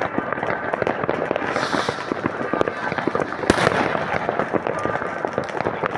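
New Year's Eve fireworks: a dense, continuous crackle of many firecrackers and bursting shells, with a short hiss just under two seconds in and one louder bang about three and a half seconds in.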